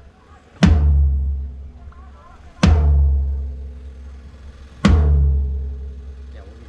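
A kick drum struck alone through the PA, three single hits about two seconds apart, each a sharp thud with a deep boom that dies away slowly. It sounds like one drum channel being checked during a soundcheck.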